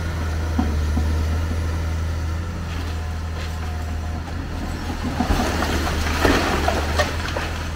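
Hyundai tracked excavator's diesel engine running steadily as it pulls down a concrete building. From about five seconds in, concrete crunches and rubble clatters down for a couple of seconds, with a sharp crack near the end.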